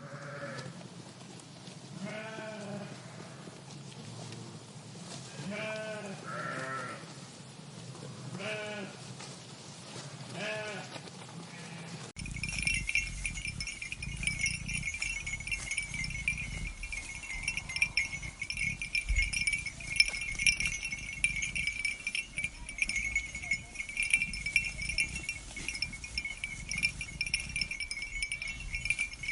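Sheep bleating, about six separate calls in the first twelve seconds. Then the sound changes abruptly to a steady, high, shimmering ringing with a low rumble underneath.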